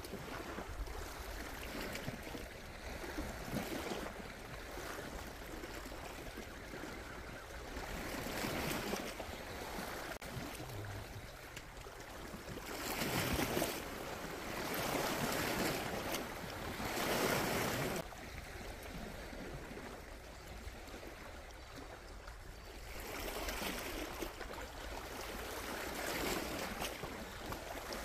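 Sea waves washing against a rocky shore, rising and falling in several surges, the loudest about halfway through.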